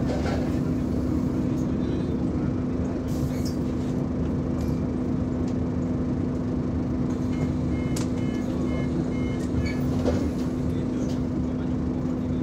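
Inside a Scania OmniCity single-deck bus: the engine's steady hum over cabin rumble. A run of short electronic beeps sounds about seven to nine and a half seconds in, with a couple of brief knocks near the end.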